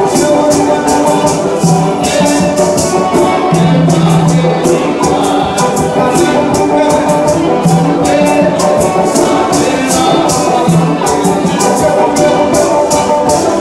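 Lively music with a steady shaker rhythm over layered held instrumental notes.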